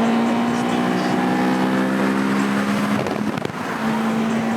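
Car engine running under way, its note sinking slowly in pitch; about three seconds in it drops out briefly, then comes back at a steady pitch.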